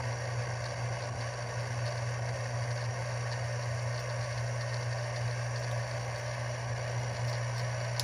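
Canon EOS R5 camera body making a steady, loud grinding noise from inside, a low hum with a rough rattling buzz over it: a malfunction that the owner takes for a defect.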